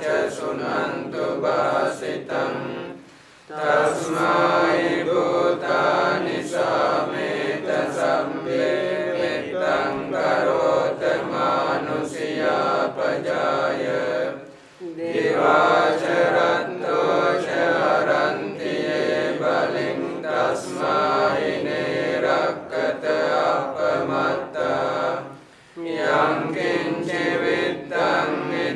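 Group of Buddhist monks chanting Pali paritta blessing verses in unison, a steady recitation with three short pauses.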